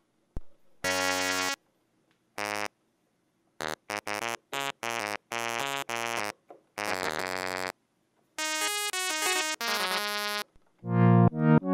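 KORG minilogue analog synthesizer, straight from its output, playing a sustained patch in short separate notes and chords that start and stop abruptly with silences between, then a longer run of moving notes. Near the end a new patch comes in with quickly repeated notes that each die away.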